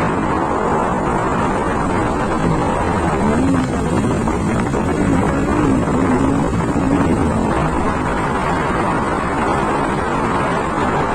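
Wind rushing over the microphone while riding a motor scooter, its engine running underneath. A faint wavering hum rises and falls in the middle.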